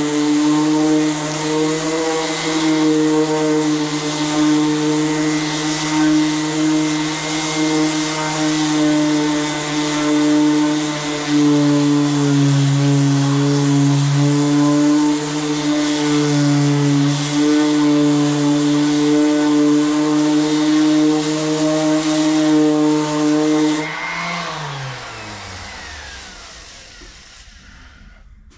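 Power sander with 40-grit paper running steadily while sanding filler and metal on a car's quarter panel. About 24 s in it is switched off, and its whine falls in pitch and fades as it spins down.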